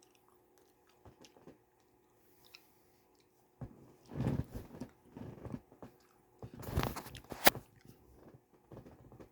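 Close-up chewing and biting of food, starting quietly and growing louder about halfway in, with a sharp click near the end.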